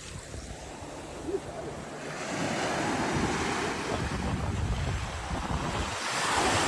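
Ocean surf washing onto the beach, with wind on the microphone; the wash swells loudest near the end.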